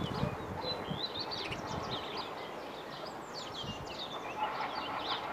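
Small songbirds chirping and warbling over a steady outdoor background, with a faint rumble building near the end.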